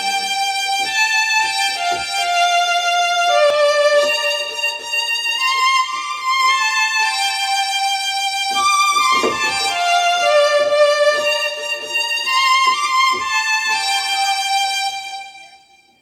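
Korg Pa300 arranger keyboard playing a solo melody on its violin tone, single held notes stepping up and down with a sliding note about nine seconds in. The sound fades out near the end.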